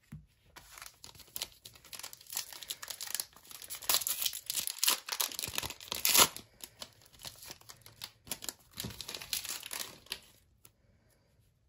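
Foil trading-card pack wrapper being torn open and crinkled by hand, a dense crackling rustle that stops about a second before the end.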